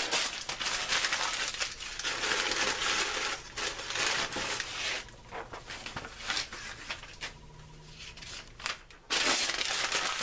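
Newsprint pages being crumpled by hand into loose balls and pushed into a metal charcoal chimney starter: a dense crinkling and crackling of paper. It thins out to scattered rustles midway, then picks up loudly again near the end.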